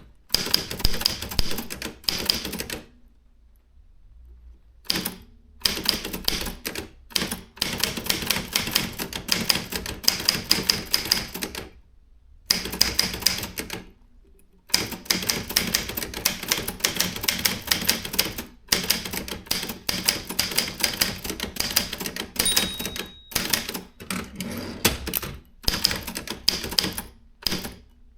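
Consul 1502 typewriter being typed on: quick runs of keystrokes broken by a few short pauses.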